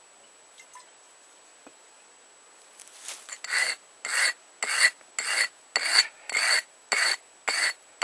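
A metal-cutting chisel being rubbed back and forth on a sharpening stone to resharpen its dulled edge. The rasping strokes start about three seconds in and come steadily at about two a second.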